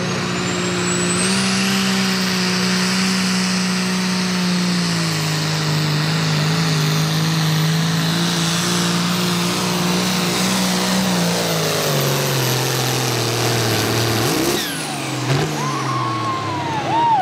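Ford 9600 pulling tractor's turbocharged diesel, limited to 466 cubic inches, running wide open under load, with a high turbo whistle that climbs in the first two seconds and holds. The engine note sinks lower as the sled pulls it down. About three-quarters through the throttle is cut and the turbo whistle falls away.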